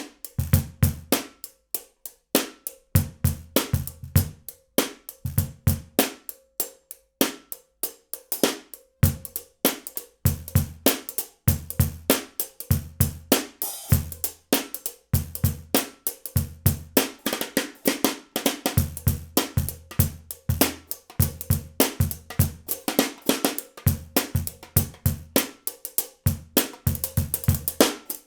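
A groove on a small acoustic street kit: a Pearl Short Fuse 10x4.5 snare and Meinl HCS bronze 10-inch hi-hats over a De Gregorio Chanela cajon struck by a foot pedal as the bass drum. Sharp snare and hi-hat hits run throughout, with deep cajon thumps coming in short clusters.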